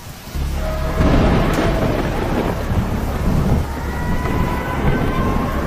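Thunderstorm with heavy rain and loud thunder from a close lightning strike: a sharp crack about a second and a half in, then continued rumbling.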